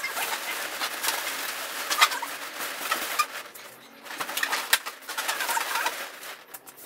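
Inflated metallic latex balloons squeaking and rubbing against each other as they are handled and worked into a balloon arch, with short wavering squeaks and scattered light taps and rustles.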